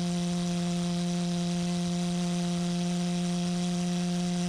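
Propane-fuelled thermal-cracking pulse jet engine running at a steady pitch: an even, low buzzing hum.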